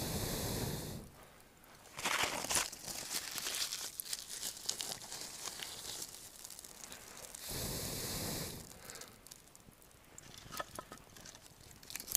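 Twigs and kindling rustling and crunching as a small campfire is laid and coaxed alight, with two rushing bursts of noise about a second long, near the start and about eight seconds in, and a few small crackles near the end.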